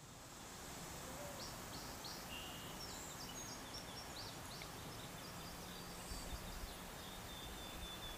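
Outdoor field ambience: a steady background hiss with faint, short high bird chirps scattered through it, and a quick bird trill near the end. A few low bumps come about six seconds in.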